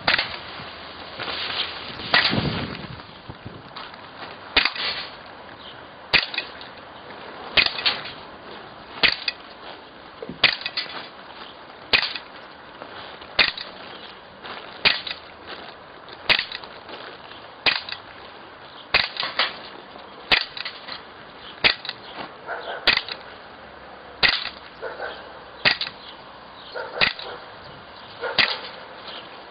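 Steady series of about twenty air gun shots firing 4.5 mm Gamo TS-10 pellets, roughly one every one and a half seconds. Each shot is a sharp crack, often followed closely by a fainter click as the pellet strikes the glass bottles and jars.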